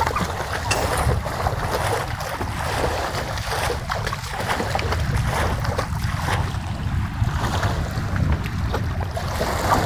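Wind buffeting the microphone in a steady low rumble, over the wash of river water.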